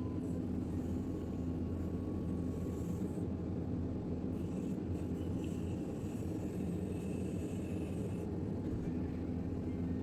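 Diesel engine of a JCB 3DX backhoe loader running steadily, a low, even drone.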